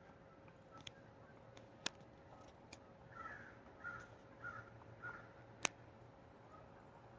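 Woodpecker pecking at wood in a few scattered sharp taps, the loudest near the end. In the middle a bird gives four short calls in a row.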